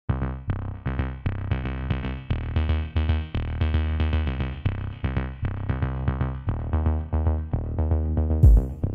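Background music with a steady, fast beat and repeated pitched notes over a strong bass, with a heavy low hit near the end.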